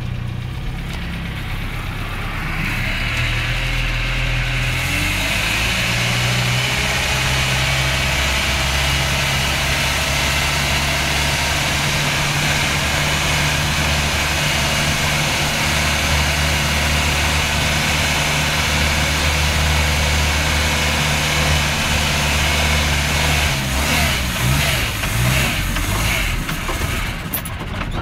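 Land Rover Series 109 station wagon's petrol engine running steadily under way, heard from inside the cab. In the last few seconds it stumbles and cuts in and out, then dies: an engine failure that the owner takes for water in the fuel.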